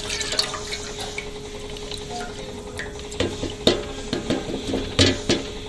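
Milk trickling from a carton into a steel pot, then several sharp knocks and clatters from about three seconds in as the carton and pot are handled.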